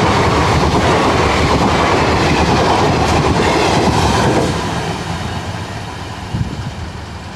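Coaches of an Indian Railways express train passing close at speed, a loud steady run of wheels over the rails. Just after four seconds in, the sound falls away and keeps fading as the last coaches move off into the distance.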